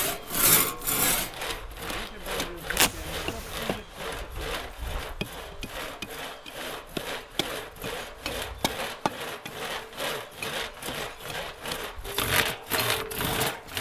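Hand crosscut saw cutting through a log in quick, even back-and-forth strokes, a few a second, louder near the end.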